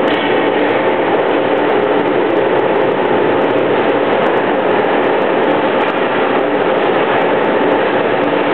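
Steady, loud ambient noise of an indoor ice rink during hockey play, with a faint hum under it and a few small clicks.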